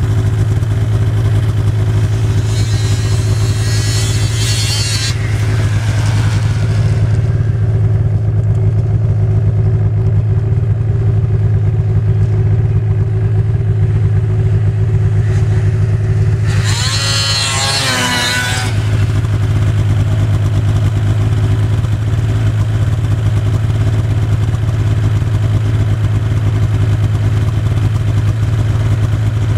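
Ski-Doo MXZ 800 two-stroke snowmobiles running: a steady low engine drone throughout. A high revving whine comes about four seconds in, and a sled passes close by about seventeen seconds in, its pitch falling as it goes.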